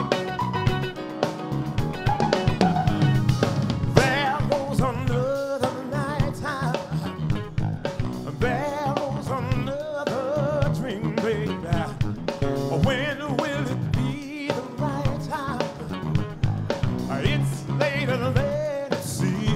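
Music with a singing voice over drums and guitar.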